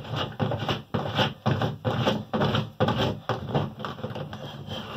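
Bathtub drain fitting being unscrewed by hand, turning in its threads with a run of irregular rubbing and scraping strokes, a few a second.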